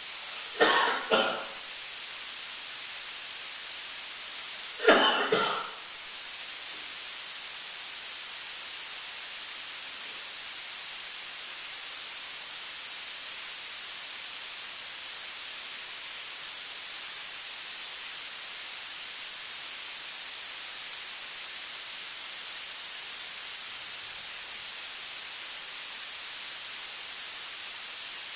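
A man coughing: two quick coughs about a second in and one more about five seconds in, over a steady hiss.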